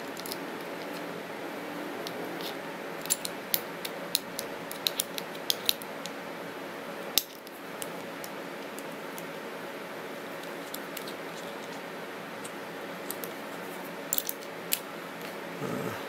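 Small metal clicks and taps as a flat steel key works a 1/4-inch screw and the aluminium quick-release mount parts knock together, in a cluster a few seconds in and again near the end, over a steady background hum.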